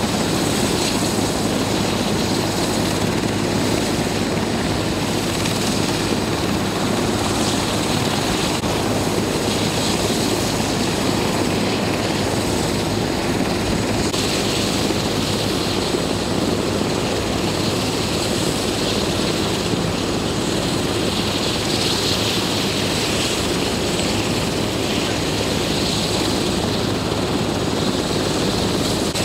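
Medical helicopter running steadily, its engine and rotor making an unbroken noise with a constant low hum.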